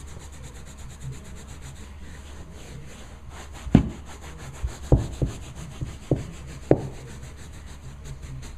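Hand brush scrubbing carpet pile on a stair tread with quick, repeated back-and-forth strokes. Several dull knocks come between about four and seven seconds in.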